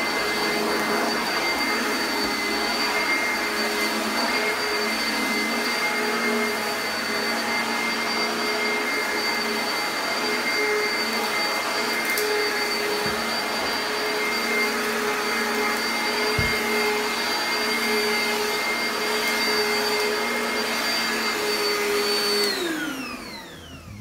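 Oreck XL upright vacuum cleaner running steadily over carpet, a high whine over the motor's hum. Near the end it shuts off and the motor winds down, falling in pitch.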